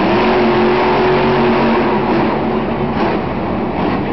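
Monster truck's supercharged V8 engine running hard at high revs, holding a steady note that eases off about halfway through.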